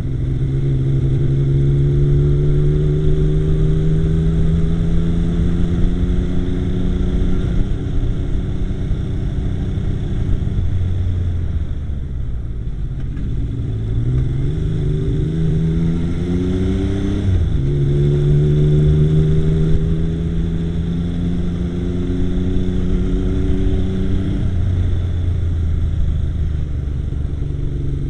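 Yamaha XS850 three-cylinder motorcycle engine under way, its pitch climbing steadily as it pulls, dropping about ten seconds in, climbing again to a sudden dip around seventeen seconds in as if through a gear change, then holding steady before easing off and picking up again near the end. The owner reports that this bike idles fine but misfires now and then while riding.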